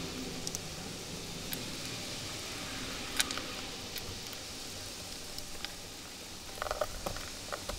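Scattered light clicks and taps from hand work with a screwdriver on the shore power inlet and its plastic back box, the sharpest about three seconds in and a few more in quick succession near the end, over a steady background hiss.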